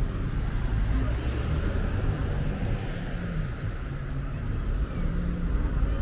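Street traffic: car engines running at low speed as cars drive past, with faint voices in the background.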